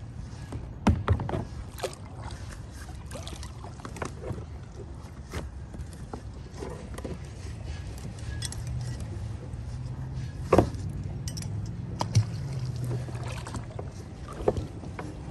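Kayak drifting on calm water, with a steady low wash of water and air and a handful of sharp knocks and clinks against the hull, the loudest about a second in and again near the middle and end. A low hum swells for a few seconds in the middle.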